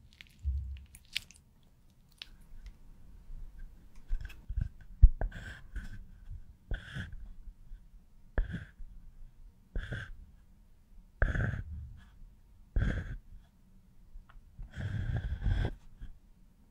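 Pencil strokes scratching close to the microphone, a short stroke about every one and a half seconds with a dull low thud under each, and a longer stroke near the end.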